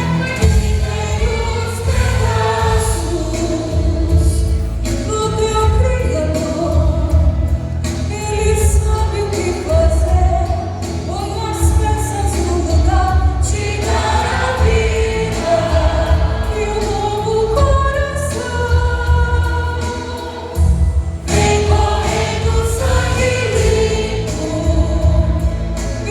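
A vocal group singing a gospel song in close harmony over an accompaniment track with a steady bass beat.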